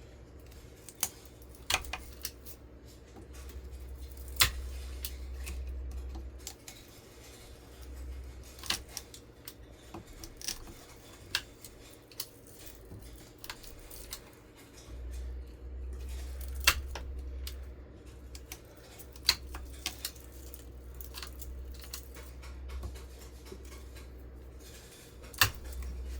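Copper windings being pried and cut out of a ceiling fan motor's stator with hand tools: irregular sharp metallic snips and clicks, a few louder than the rest, over a low rumble that comes and goes.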